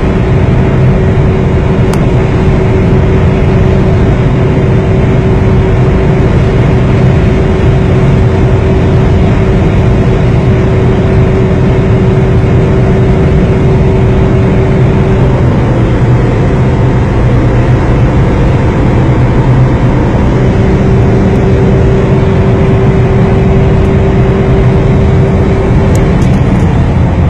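2008 Ford Mondeo's 2.4 litre engine held flat out near 6,000 rpm at about 220 km/h top speed, heard from inside the cabin: a loud, steady drone. A higher tone in it drops out for about five seconds midway and then comes back.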